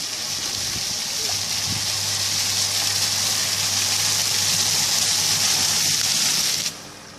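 Ground-level splash fountain: water jets spraying up from floor grates and splashing back onto stone paving, a steady hiss of falling water that drops away sharply near the end.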